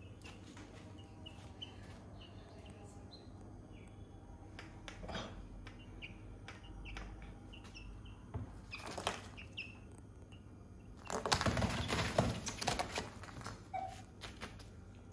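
Young chickens peeping softly and shuffling about, with scattered small scratches and clicks. About eleven seconds in comes a loud flurry of wing flapping and rustling, lasting about two seconds.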